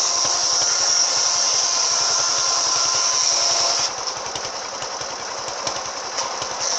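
Engine-driven circular saw running with an AKM saw blade, its engine pulsing fast and even underneath a high, steady cutting hiss. The cutting sound drops away just before four seconds in while the engine runs on, and comes back right at the end.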